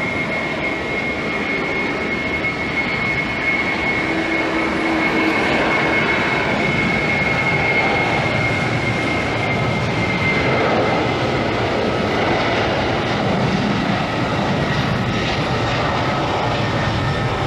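Airbus A330-300 jet airliner's engines running: a steady loud rush with a thin high whine that fades out about two-thirds of the way through.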